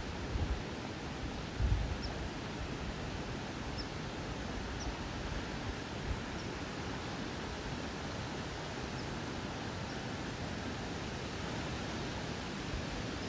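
Steady rushing of a river flowing over rocks, with a few faint, short high bird chirps here and there. There are low wind buffets on the microphone in the first two seconds.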